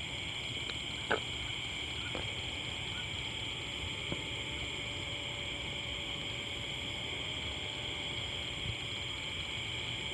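Steady night chorus of frogs and insects, a continuous high shrill, with a couple of faint knocks about a second in and again near four seconds.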